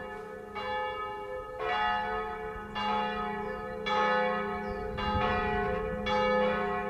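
Church bells ringing, a new stroke about once a second, each ringing on over a lingering low hum.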